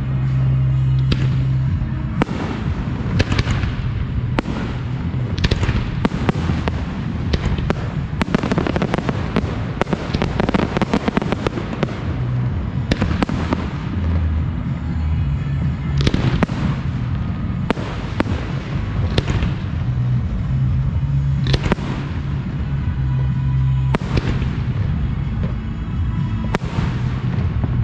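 Professional aerial fireworks display: shells bursting one after another every second or two, with a dense crackling barrage about a third of the way in.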